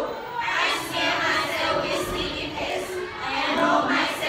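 A class of teenage students reading a text aloud in unison from sheets of paper: many voices speaking together in a choral reading.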